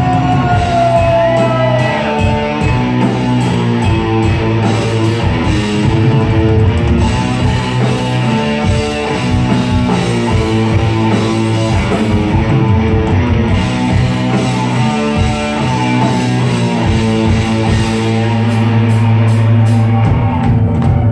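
Heavy metal band playing live: electric guitars and bass over a drum kit in an instrumental passage.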